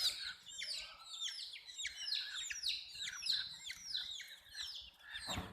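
A group of baby chicks peeping continuously, many high, downward-sliding peeps overlapping several a second. A brief low thump comes near the end.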